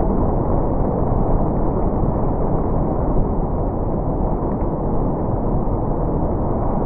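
Strong storm wind blasting the microphone close to a large rain-wrapped tornado: a loud, steady, low rushing noise that never lets up.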